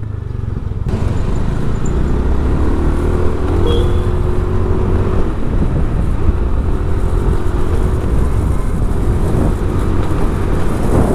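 Motor vehicle travelling on a city road: a steady low engine rumble with road noise that builds over the first second.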